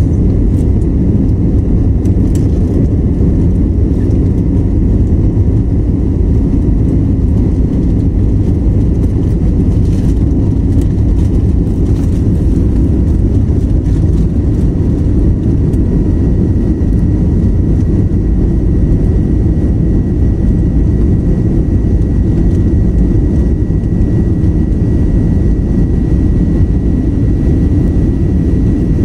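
Jet airliner cabin noise in the climb after takeoff: the engines and rushing air make a loud, steady, deep roar. A faint high steady whine sits above it and grows a little stronger from about halfway through.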